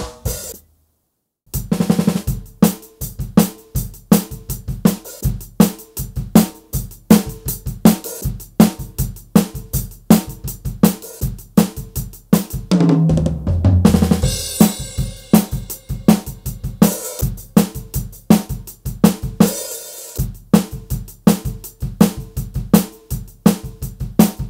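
Donner Backbeat electronic drum kit being played through its sound module. After one opening hit and a short pause, a steady groove of bass drum, snare and hi-hat starts about a second and a half in. About 13 seconds in, a tom fill falling in pitch leads into a cymbal crash.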